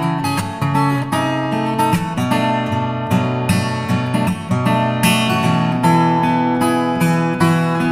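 Background music: strummed and picked acoustic guitar with a steady rhythm.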